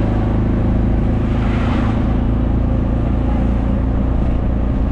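A motor vehicle's engine running steadily up close, a loud, even low hum with road or wind noise over it.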